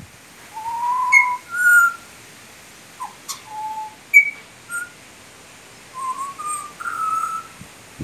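Young butcherbird singing: a string of short, clear fluted whistles at varying pitches, some rising, in small groups with pauses between them. There is a single sharp click about three seconds in.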